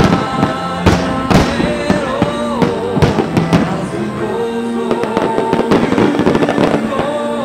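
Fireworks from a starmine barrage: shells bursting one after another as a series of sharp booms, over continuous music.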